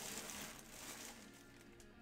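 Faint background music with a few steady tones, under a soft rustle of trading cards being handled in the first second.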